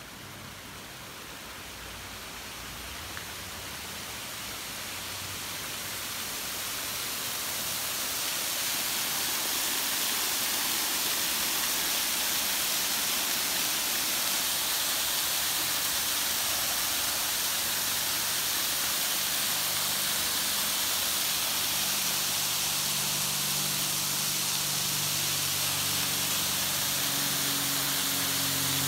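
Water cascading in sheets over a stone fountain wall into a rocky pool: a steady rushing splash that grows louder over the first ten seconds or so, then holds.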